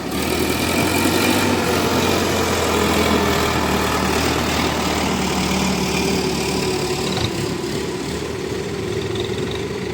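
Heavy diesel engine running steadily, a little louder in the first few seconds and then easing slightly.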